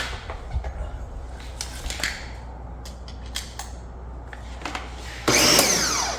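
A few clicks and knocks of handling, then about five seconds in an electric pressure washer starts spraying through a 15-degree nozzle with a sudden loud rush of motor and water jet.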